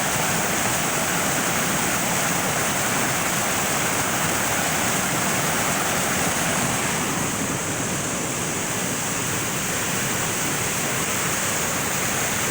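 Floodwater rushing steadily out of a storm drain into an overflowing stream, a constant loud rush of water.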